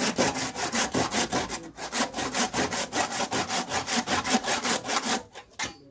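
Hand saw cutting into a wooden door post with fast back-and-forth strokes, about five a second, stopping shortly before the end.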